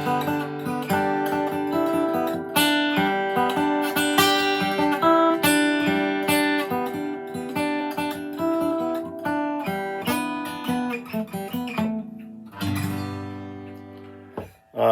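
2002 Gibson J45 acoustic guitar played as a run of picked notes, ending with a chord struck a little before the end that rings out and fades. The guitar has a new bridge, a built-up nut that cured its G-string buzz, and new Elixir coated strings.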